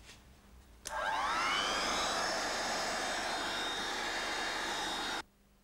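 Hand-held hot-air gun switched on about a second in: its fan spins up with a quickly rising whine, then runs steadily, blowing hot air to warm the adhesive strip of a self-adhesive body-side moulding. The sound cuts off abruptly near the end.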